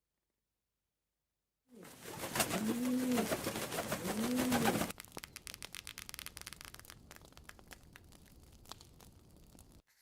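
Bird wings flapping, with two low rise-and-fall coos near the start. The flaps grow softer and quicker, then stop suddenly near the end.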